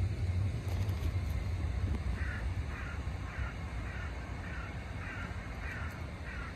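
A crow cawing in an even series of short harsh calls, about eight of them, roughly two a second, starting about two seconds in. A steady low rumble runs underneath.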